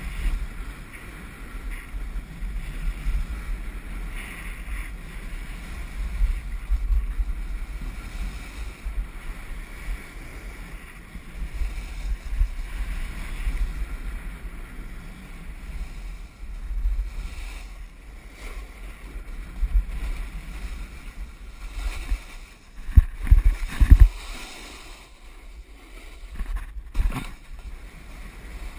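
Wind buffeting a GoPro action camera's microphone over the hiss of a snowboard sliding on spring snow, with a few heavy low thumps near the end.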